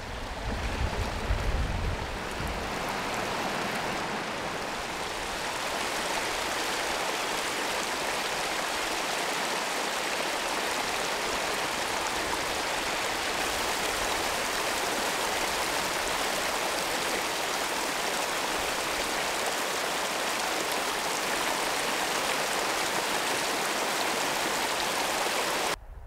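Hot-spring water rushing and splashing down a small rocky cascade, a steady, even rush.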